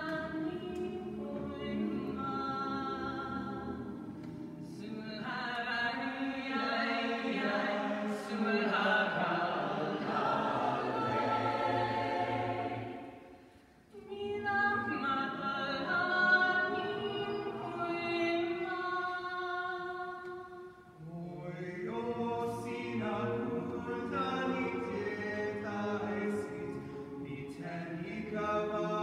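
Mixed choir singing a cappella in sustained, swelling chords. The singing breaks off briefly about fourteen seconds in and dips again about seven seconds later.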